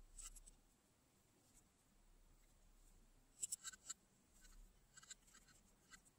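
Faint clicks and light scrapes of a small precision screwdriver working tiny screws in a gimbal's plastic housing, with a quick cluster of sharper clicks about three and a half seconds in.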